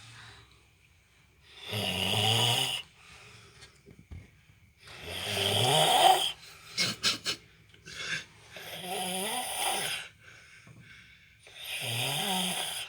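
Snoring: four drawn-out snores at an even breathing rhythm, about one every three and a half seconds, with quiet gaps between them.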